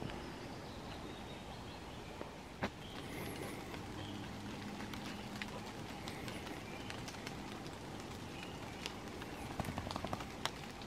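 Woodland ambience: faint, scattered bird calls over a steady background, with a few sharp clicks and snaps, one strong one a few seconds in and a quick cluster near the end.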